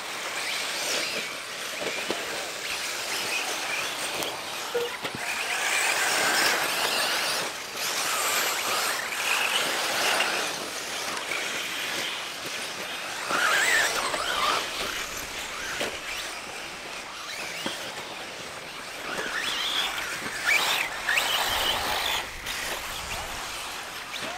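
Electric RC buggies racing on a dirt track: motor whine rising and falling as the cars pass, over tire noise on the dirt.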